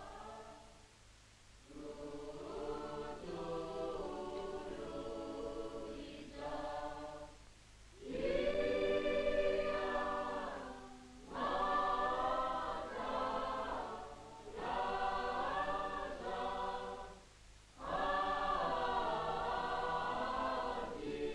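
A choir singing a melody in phrases of a few seconds, with short pauses between them.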